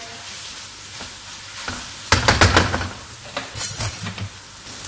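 Ginger garlic paste and sugar sizzling in hot oil in a pan, with a cooking utensil scraping and knocking against the pan in two short bursts, about two seconds in and again about three and a half seconds in.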